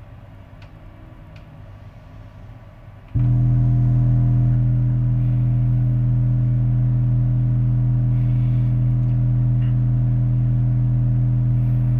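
A faint low hum, then about three seconds in a loud, steady low test tone with a stack of overtones starts suddenly and holds unchanged. It is a test signal being run through the AudioArt 200ms amplifier and played over its speaker.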